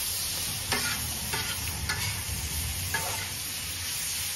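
Thin-sliced ribeye sizzling steadily on a hot Blackstone flat-top griddle, with a metal spatula scraping and clacking against the steel plate a few times as the meat is tossed.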